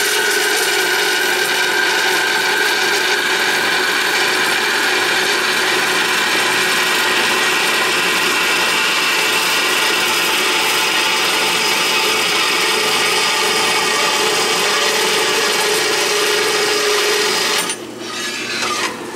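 Woodworking bandsaw converted to cut metal, its quarter-inch metal blade sawing through 1/8-inch steel plate: a steady, loud cutting noise with a few held tones running through it. The noise drops away near the end as the cut finishes.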